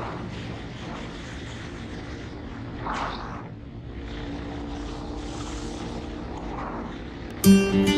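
Motorcycle engine running steadily while riding, with wind noise on the microphone. Acoustic guitar music cuts in sharply near the end.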